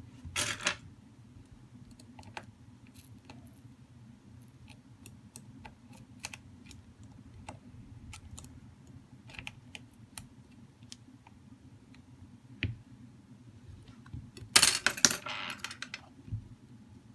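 Light clicks and ticks of metal tweezers and fingers on a smartphone's plastic-and-metal display frame. There is a louder rustling scrape about half a second in and a longer one of about a second near the end, as the frame is handled and lifted.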